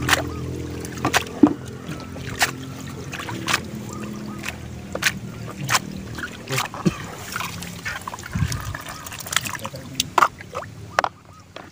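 Water trickling and splashing from a perforated plastic basket of giant gourami fry being sorted over a tub of water, with many sharp clicks and taps throughout. A low steady hum sits underneath and stops about eight seconds in.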